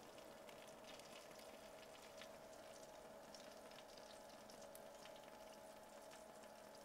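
Near silence: faint room tone with a thin steady hum.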